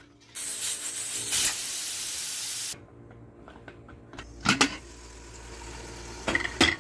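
Stovetop pressure cooker venting steam through its valve in a loud, even hiss for about two and a half seconds, cutting off suddenly. A few sharp metal clanks follow as the lid is worked open.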